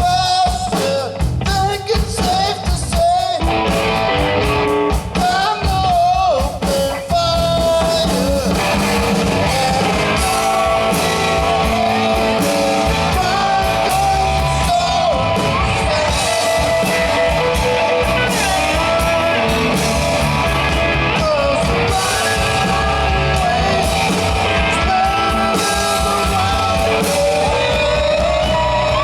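Rock band playing a song: singing over guitar and drums.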